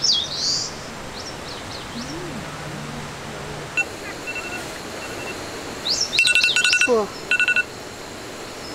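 Wild birds calling outdoors: quick whistled notes sliding up and down at the start and again around six seconds in, then a loud, rapid rattling call of clicky notes from about six to seven and a half seconds in.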